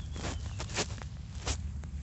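A horse's gut rumbling low and steadily, with three short rustling sounds: about a quarter second in, near the middle, and about three quarters of the way through.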